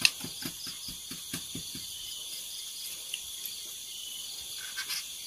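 Steady high chirring of night insects throughout. During the first two seconds there are soft repeated squelching strokes, about four or five a second, from hands kneading raw fish with lime in a metal bowl, opening with a sharp click.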